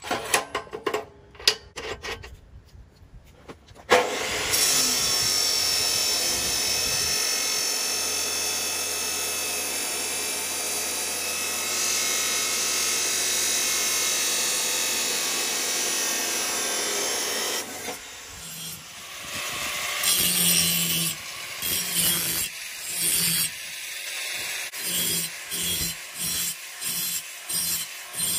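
Abrasive chop saw cutting a steel plate: a few clicks as the piece is clamped, then a steady loud grinding cut lasting about thirteen seconds. After that, an angle grinder grinds the plate's edges in short repeated passes.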